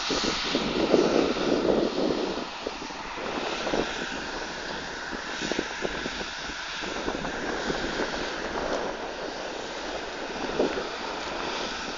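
Wind buffeting the microphone in uneven gusts, over a steady mechanical drone.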